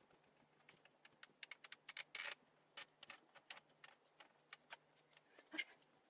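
Faint scattered clicks and light knocks from handling particleboard bookcase parts and small hardware during assembly, with a short cluster of louder ones about two seconds in and another near the end.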